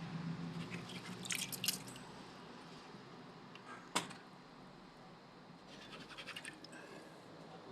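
Window air conditioner running with a steady low hum, with scattered light clicks and rattles and one sharp click about four seconds in.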